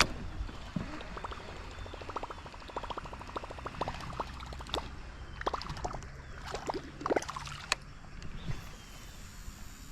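Water splashing and trickling, with runs of small clicks and a few sharper knocks.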